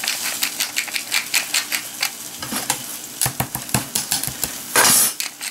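Pepper mill grinding over raw fish fillets: a fast, dense crackle of gritty clicks, with a short, louder rasp near the end.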